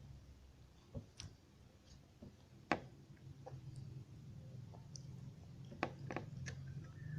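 Close-miked eating sounds: a scattered run of sharp clicks and taps, the loudest a little under three seconds in and a cluster near the end, over a steady low hum.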